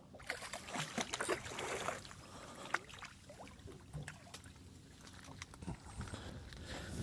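Water splashing at the side of a small fishing boat, loudest in the first two seconds, with scattered knocks and clicks after.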